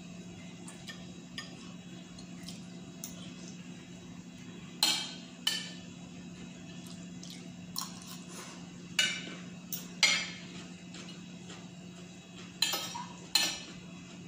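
Metal fork and spoon clinking and scraping against a plate while eating. The sharp clinks come mostly in pairs every few seconds, with fainter taps between.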